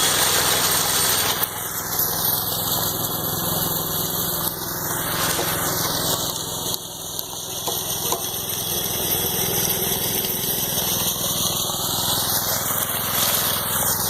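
Engine running steadily on a concrete pour, with no change in speed.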